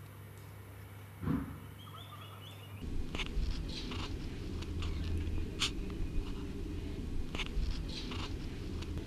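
Two young leopards play-wrestling: one short low grunt about a second in, then scuffling with many quick clicks and scrapes over a steady low rumble.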